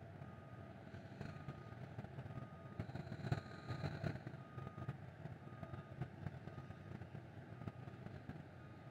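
Faint low rumble of distant road traffic, with a faint high beep repeating about once a second.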